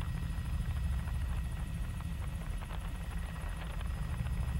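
Helicopter in flight heard from on board: a steady low rumble of rotor and engine.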